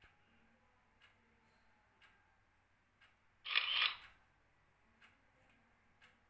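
A short rushing noise lasting about half a second, about three and a half seconds in, sounding as the laptop slideshow's slide breaks apart in a transition effect. Faint ticks come about once a second throughout.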